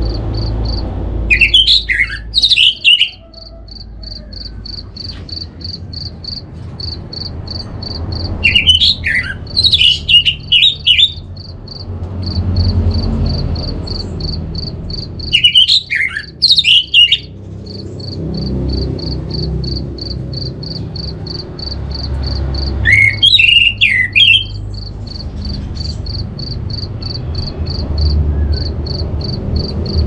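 Orange-headed thrush singing four short, loud phrases of quick falling whistled notes, spaced about seven seconds apart. Between phrases runs a steady high chirping pulse, about three or four a second.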